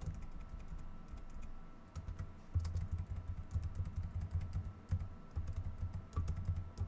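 Computer keyboard typing: a fast, uneven run of key clicks, each with a low thud as the keys bottom out.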